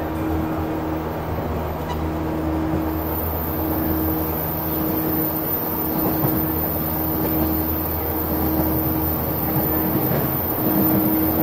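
Running noise inside a JNR 185 series electric train, recorded at the gangway between cars: steady rumble of wheels on rail with the MT54 DC traction motors and gears whining at a constant pitch.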